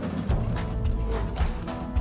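Background music with a beat, pitched melody lines over a bass pulse.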